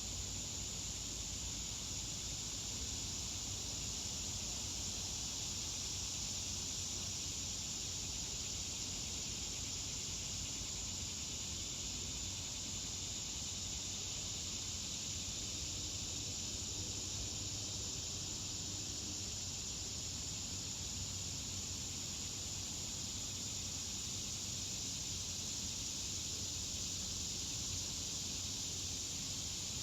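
Steady, unbroken high-pitched chorus of insects, such as crickets, with a faint low hum beneath.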